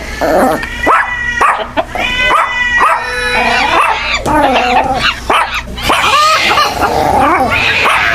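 A novelty alarm ringtone of dog-like barks and yelps: many short, overlapping yelps that rise and fall in pitch, played loud.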